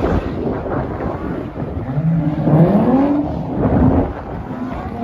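Car engine revving hard while the car does a burnout, its tyres spinning in thick smoke. The engine note climbs sharply from about two to three and a half seconds in, over a steady rush of tyre and exhaust noise.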